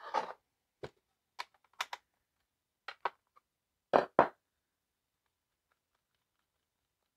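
Light clicks and clacks of plastic and metal chainsaw parts and a hand tool being handled on a plywood board as the side cover, bar and chain come off a Stihl MS 180, with two louder knocks about four seconds in.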